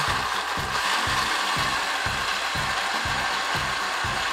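Countertop blender motor running steadily, puréeing chunks of tomato, onion and garlic with a little water.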